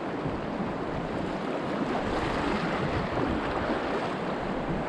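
Steady rush of river rapids around a kayak, with wind noise on the microphone.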